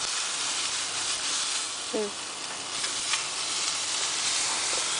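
Salmon fillets sizzling on hot grill grates: a steady hiss. A brief vocal sound about two seconds in, and a couple of faint ticks from the spatula on the grates.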